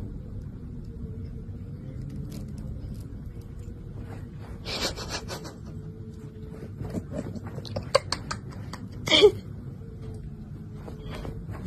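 Thin plastic glove and bag crinkling in short bursts as a hand holds food out to a cat, over a steady low background. About nine seconds in there is one brief, louder vocal sound.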